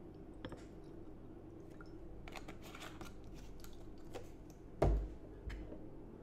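Small handling noises of a plastic bottle and a glass jar on a desk: scattered light clicks and taps, then a dull thump just before five seconds in and a softer one about half a second later.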